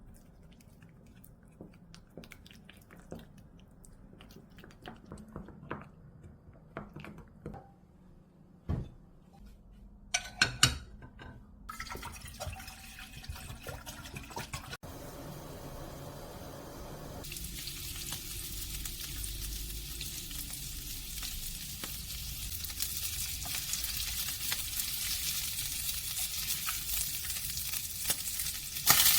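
Kitchen cooking sounds: light knocks and clicks, a louder clatter about ten seconds in, then liquid being poured and stirred. From about seventeen seconds a steady sizzle sets in from the chicken stew pan and grows louder toward the end.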